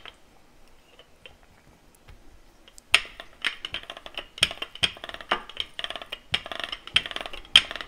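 Rolling pin rolling out dough, going back and forth with a knock about twice a second and a rubbing sound between the strokes. It starts about three seconds in after a quiet spell.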